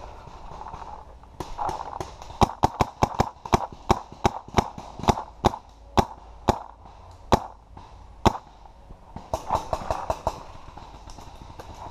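Paintball marker firing a run of about fifteen to twenty sharp shots over some six seconds, several a second at first, then slowing to single shots. Near the end comes a short rustle of movement.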